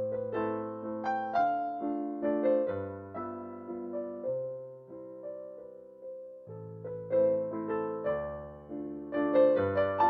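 Slow, gentle piano music: single notes and chords over low bass notes, each struck note fading away, with a sparser moment just past the middle before the bass comes back in.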